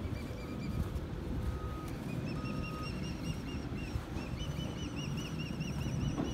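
A bird calling in a fast series of short, arched, high chirps, about four a second, starting about two seconds in, over a steady low rumble. Three short level whistled notes come before the chirps.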